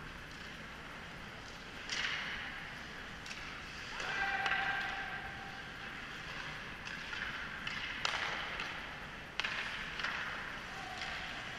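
Hockey skate blades scraping and carving on rink ice, heard from across the ice, in repeated spells of hiss about a second long, with a few sharp clacks of sticks and puck.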